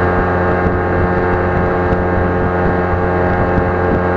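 Steady engine drone at constant speed, a continuous hum with no change in pitch.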